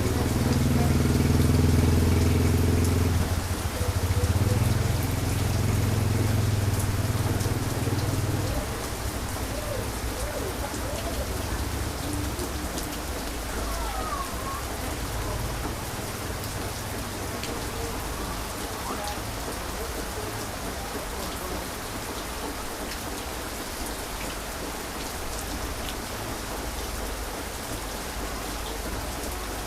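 Heavy rain falling steadily, with a loud low rumble of thunder for the first several seconds that dies away about eight seconds in.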